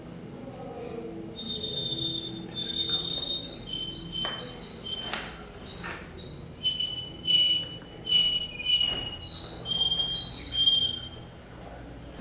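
Male canary singing a long phrase of clear, held whistle-like notes, each at one steady pitch, stepping between several high pitches every half second to a second. The song stops about a second before the end.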